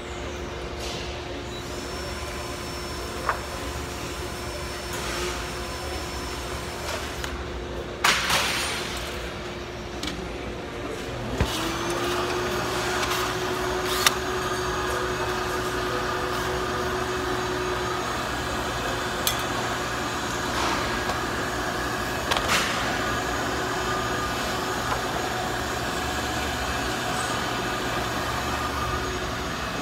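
Steady hum of machinery, with a second motor starting up with a brief rising whine about eleven seconds in and running on. Scattered sharp clicks and knocks come over it, the loudest a ringing clatter about eight seconds in.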